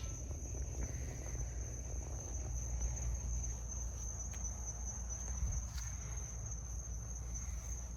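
Steady, unbroken high-pitched trill of a cricket-like insect, over a constant low rumble.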